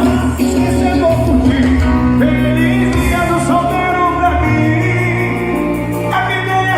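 Loud music with a singing voice and heavy bass, played through a 'paredão' car sound system with two bass speakers.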